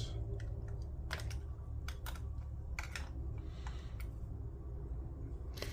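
Irregular sharp plastic clicks and taps, some in quick pairs, as a small part is pried loose from a Pioneer 1000SRT jog wheel assembly, over a steady low hum.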